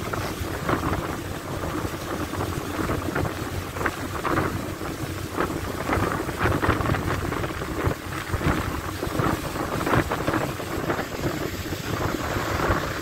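Wind buffeting and rumbling on a phone microphone on a ferry's open deck, over the steady low hum of the ferry's engine.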